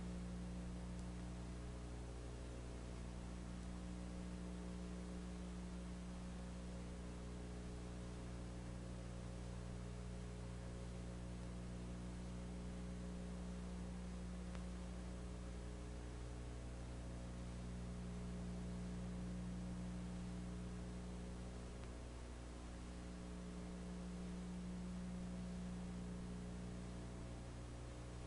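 Steady electrical mains hum with a layer of hiss; no other sound.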